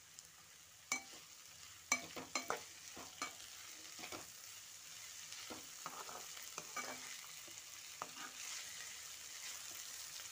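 Grated potato and carrot with chopped beans, onion and green chilli sizzling in oil in a frying pan while a spatula stirs them, with scattered scrapes and taps of the spatula against the pan. The steady sizzle grows a little louder after about four seconds as the vegetables fry toward a good colour.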